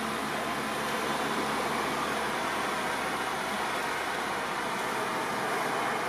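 Steady highway traffic noise: an even rush with no single vehicle or event standing out.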